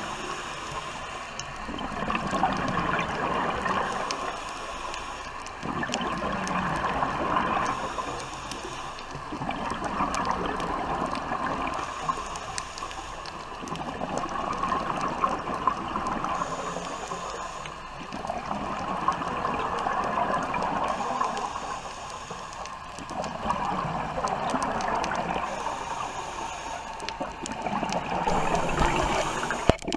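Scuba diver breathing through a regulator, heard underwater: exhaled bubbles gurgle up in a rush about every four to five seconds, fading between breaths.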